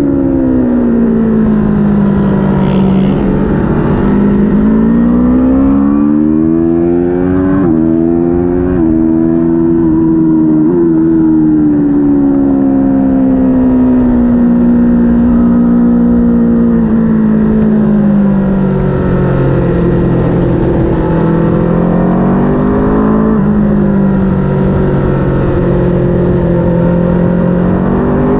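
Racing vehicle's engine running hard. The revs climb and fall in long sweeps, with a few sudden jumps in pitch at gear changes.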